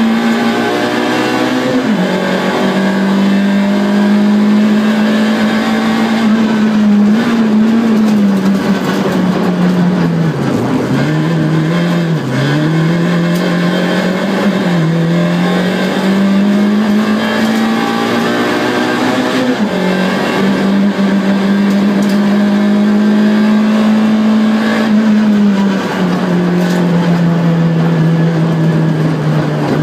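Car engine running hard, heard from inside the cabin. Its pitch steps down suddenly at several gear changes and dips twice in the middle as the car slows and picks up again.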